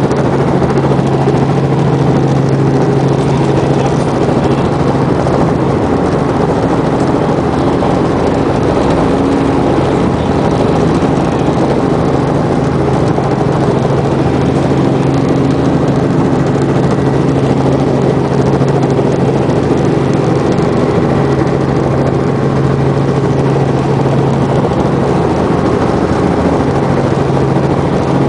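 Robinson R44 Clipper II helicopter heard from inside the cabin: the steady drone of its six-cylinder Lycoming piston engine and rotors, a constant low hum under a dense rushing noise, unchanging throughout.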